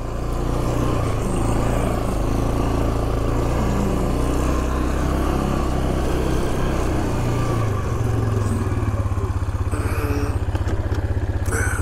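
2008 Yamaha Grizzly 450 ATV's single-cylinder four-stroke engine running steadily while the machine is ridden along a dirt track. From about eight seconds in the note settles into a rapid, even throb.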